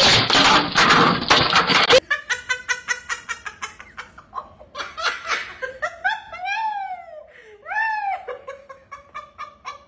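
Laughter: a loud, rough burst for the first two seconds, then rapid ha-ha pulses with a few long rising-and-falling whoops, trailing off near the end.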